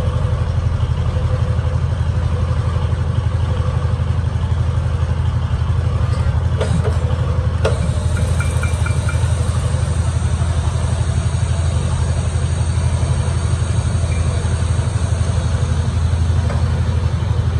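Metal lathe running with a loud, steady low drone and a fast even pulsing, its four-jaw chuck spinning a truck axle flange while a tailstock drill bores into the centre. Two short sharp clicks come about six and a half and seven and a half seconds in.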